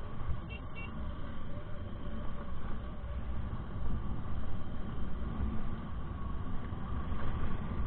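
Honda Click 125i scooter riding at a steady speed, its engine humming under a steady wind rumble on the action camera's microphone. A brief high chirp sounds about half a second in.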